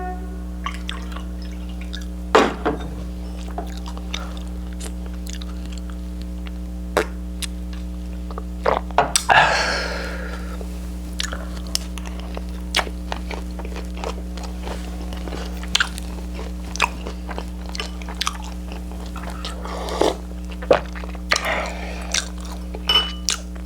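Close-miked chewing and biting of food, with scattered sharp clicks of utensils against dishes, over a steady electrical hum.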